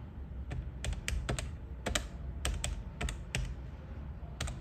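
Calculator keys being pressed one by one, a string of sharp separate clicks a few per second at an uneven pace, as the numbers of an addition are keyed in. A low steady hum runs underneath.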